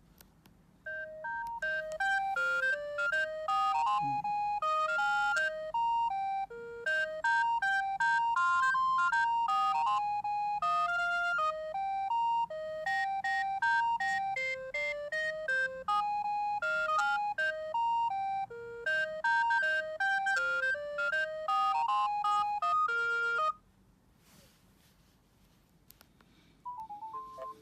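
Ringtone playing on a Bird S1150 mobile phone: an electronic melody of short, stepped notes that starts about a second in and stops abruptly after about 22 seconds. The next ringtone begins just at the end.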